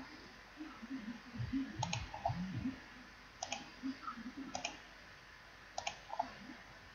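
Computer mouse button clicked four times, each click a quick press and release heard as a tight double tick, over low room noise with a few dull low bumps about two seconds in.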